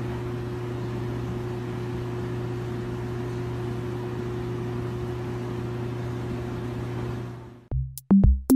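Steady low electric hum with hiss from the motor and pump of a water-filled underwater treadmill tank running. It fades out about seven and a half seconds in, and music with a drum beat starts near the end.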